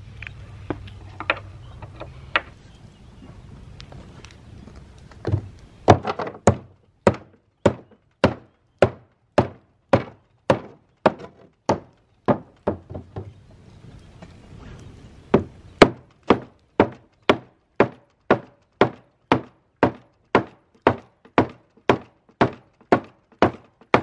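Wooden mallet pounding on a 1960s Magnavox console's wooden cabinet: a few light knocks, then a steady run of sharp wooden thuds about two a second, a short pause, and another run.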